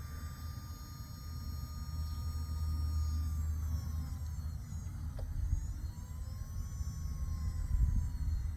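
KingTech K102 jet turbine being spun by its electric starter during a start attempt: a whine that rises, falls away and rises again as the starter cycles, over a low rumble. A fuel valve left shut is keeping it from lighting.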